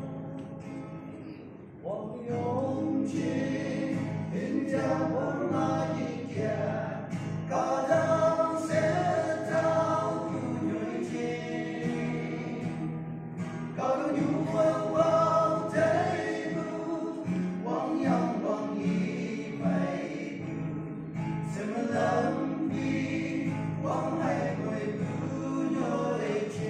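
A group of men singing a gospel song into microphones over a steady instrumental backing; the singing swells about two seconds in.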